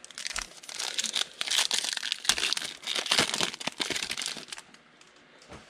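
Foil wrapper of a football trading card pack being torn open and crinkled, a dense crackling that stops about five seconds in.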